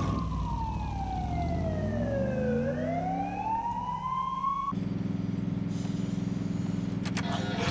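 Emergency vehicle siren wailing, its pitch sliding slowly down and then back up, before it cuts off abruptly about two-thirds of the way through; a steady low hum remains afterwards.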